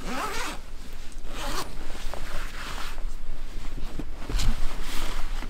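Zipper on a mesh pet-carrier backpack being pulled open in several short strokes.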